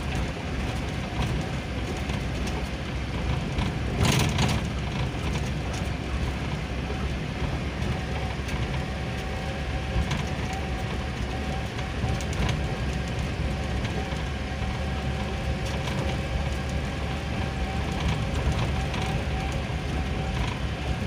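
Inside the cab of a Suzuki Futura pickup on the move: steady engine and road noise with scattered rattles from the cab, and a louder knock, like a bump in the road, about four seconds in.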